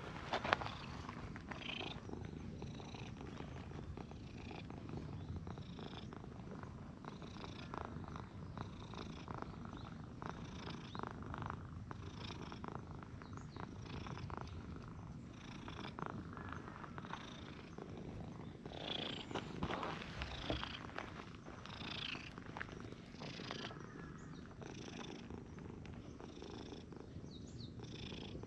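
A cat purring steadily.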